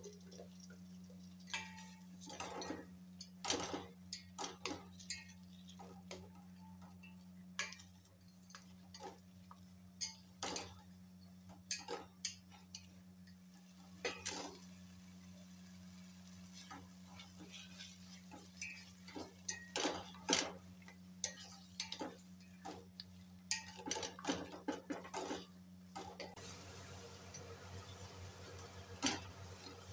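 A spatula knocking and scraping against a steel cooking pot while potatoes and masala are stirred. The clinks come irregularly, in clusters, over a steady low hum.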